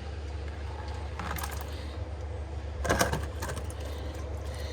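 Light metal clinks and a rattle, a short one about a second in and a louder one about three seconds in, as a drain plug is worked loose under a car with an Allen wrench, over a steady low hum.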